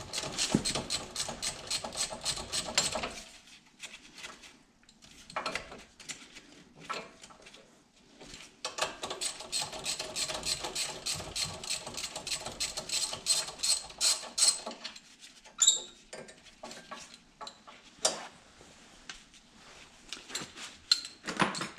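Hand socket ratchet clicking rapidly in runs of quick, even clicks as the brake-hose bracket bolt and caliper bolts are loosened. Near the end of the second run and a couple of seconds later come a few sharp metal clinks.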